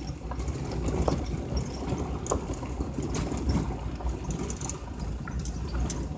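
A vehicle driving over a rough dirt road, heard from inside the cabin: a steady low rumble of engine and tyres, with scattered small knocks and rattles.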